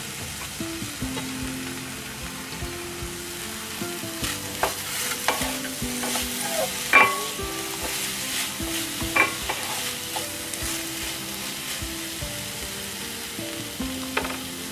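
Diced vegetables (freshly added tomato and capsicum) sizzling in hot oil in a metal kadai while a spatula stirs them, with steady frying hiss and sharp knocks and scrapes of the spatula against the pan, the loudest about seven and nine seconds in.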